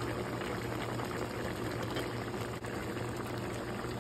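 Beef curry in thick masala sauce boiling in a pot, a steady dense bubbling and popping, under a steady low hum.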